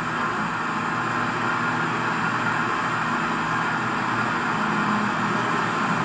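Radio-controlled model excavator running its motors with a steady mechanical whir.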